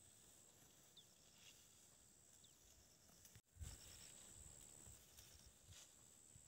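Near silence: faint outdoor ambience with a steady high-pitched tone and small high chirps. About three and a half seconds in, the sound drops out for an instant, then soft low thumps and rumbling follow.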